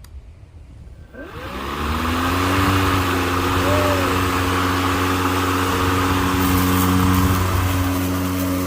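Ryobi battery-powered 20-inch lawn mower's electric motor starting about a second in, its pitch rising as the blade spins up, then running steadily and loud.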